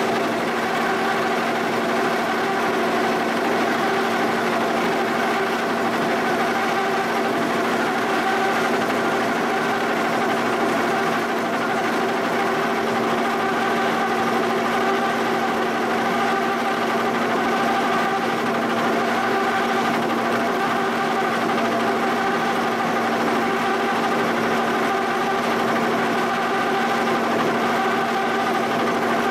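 Giddings & Lewis horizontal boring mill running under power, its end mill feeding across and cutting the face of a cast-iron shaper body. A steady machine hum with several held tones, unchanging throughout.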